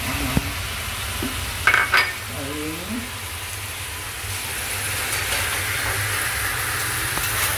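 Steady sizzling hiss of food frying in a pan on a gas stove, growing a little stronger in the second half, with two quick clinks a little under two seconds in.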